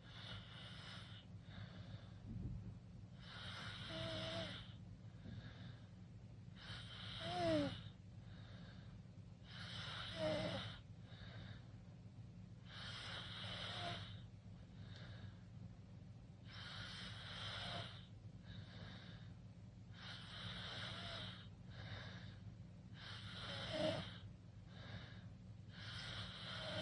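A teenager snoring with mouth wide open, a loud snore about every three seconds with softer breaths between. Some snores carry a short squeaky whistle. A steady low hum runs underneath.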